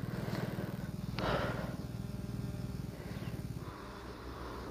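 Royal Enfield Himalayan's 411 cc single-cylinder engine idling with a low, even beat while the bike lies on its side after a fall; the beat fades out about three and a half seconds in. A brief scuffing noise about a second in.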